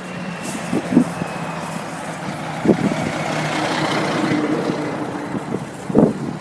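A truck passing by, its road noise swelling to a peak about four seconds in and then fading, with a few short low thumps.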